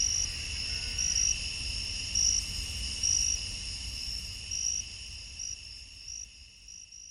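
Crickets chirping: a steady high trill with louder chirps about once a second over a low rumble, fading out toward the end.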